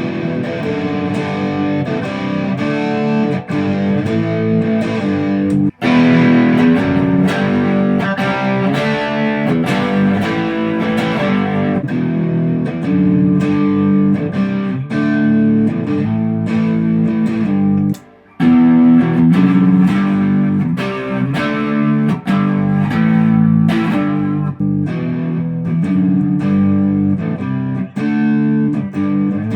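ESP LTD EC-256 electric guitar being played through an amplifier, a run of chords and picked notes that stops briefly about six seconds in and again about eighteen seconds in.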